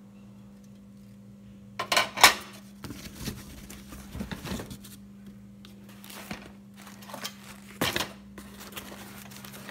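Unpacking and handling noise: two sharp knocks about two seconds in, then rustling and scraping of cardboard boxes and packaging, with more knocks later, as a metal-framed mirror tray and boxes are moved about on a table.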